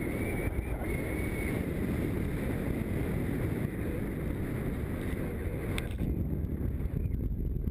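Wind rushing over a paraglider pilot's camera microphone in flight, a steady low buffeting rumble.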